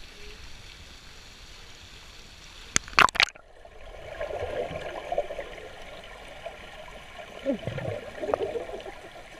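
Water splashing over an action camera as it dips under the surface of a swimming pool, about three seconds in, then the muffled underwater sound of the pool. Near the end, gurgling bubbles from a swimmer breathing out underwater.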